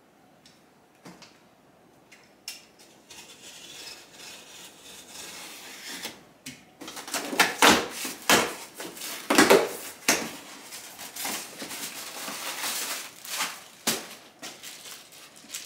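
Cardboard shipping box being opened by hand: tearing at the top of the box, then a run of sharp cardboard scrapes and crinkles as the flaps are folded back and the packing inside is rummaged through. It starts about two seconds in and is loudest in the middle.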